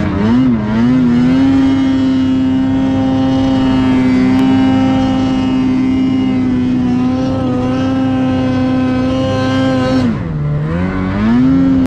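Snowmobile engine held at high, steady revs. About ten seconds in the revs drop off sharply, then climb back up.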